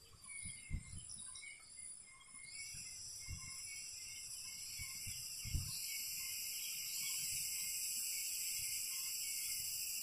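A steady high insect drone starts about two and a half seconds in and grows louder, taking over from faint intermittent chirps. A few low thumps are heard.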